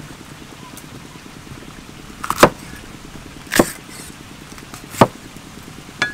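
Cleaver chopping green bell peppers on a thick round wooden chopping board: four sharp knocks about a second apart, the first about two seconds in.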